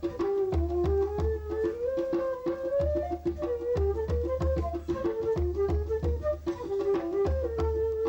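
Traditional music led by a bamboo flute playing a wandering melody. Under it runs a fast-repeated pulsing note, and deep low beats come in runs of several at a time.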